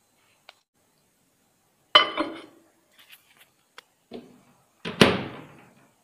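Microwave oven being loaded and shut: a sharp clack with a short ring about two seconds in, a few small clicks and a knock, then the loudest clunk about five seconds in as the microwave door is closed.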